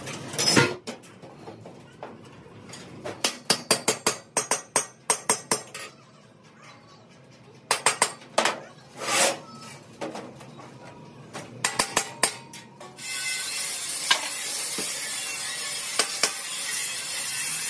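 Hand hammer striking the steel of an air-compressor tank shell and its domed end cap: quick runs of sharp metallic taps, up to about four a second, with pauses between them. About two-thirds of the way through a steady noise sets in, and a few more taps sound over it.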